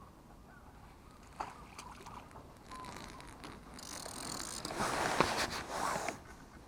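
Water splashing for about two seconds, around four to six seconds in, with a sharp click in the middle: a hooked carp thrashing at the surface as it is played in close to the bank.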